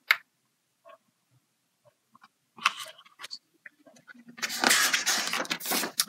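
Paper pages of a large hardcover picture book being handled and turned: a short rustle about two and a half seconds in, then a longer, louder rustle of paper lasting over a second near the end.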